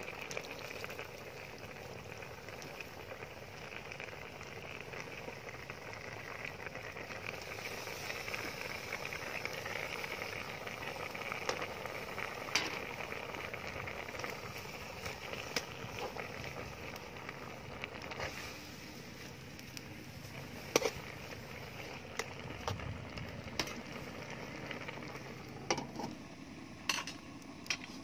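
Soup simmering in a steel wok over a wood fire: a steady bubbling, sizzling hiss that thins out in the second half. A few sharp cracks and clicks stand out, the loudest near the end.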